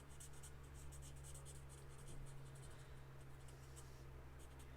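Faint scratching of the fine tip of a Stampin' Blends alcohol marker colouring small stems on cardstock, a rapid series of short strokes, over a steady low electrical hum.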